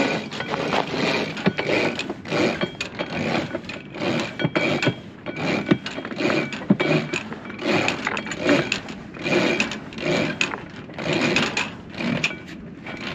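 Sailboat winch being cranked by hand to haul a sail's line tight, clicking and grinding in repeated strokes about once a second.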